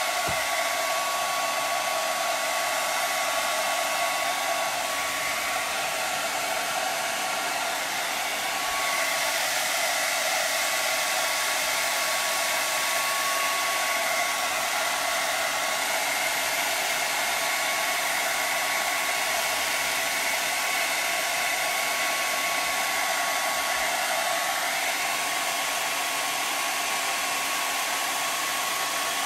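Handheld blow dryer running steadily on heat, a continuous rush of air with a thin steady whine.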